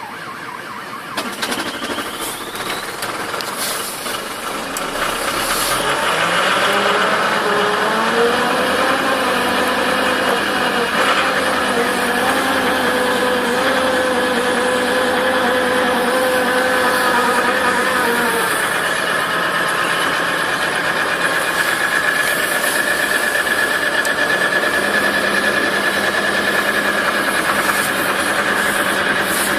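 Diesel engine cold-starting in deep frost: it catches and its speed rises about five to eight seconds in, then it runs steadily, its pitch dropping back about eighteen seconds in, with a steady high whine over the running engine.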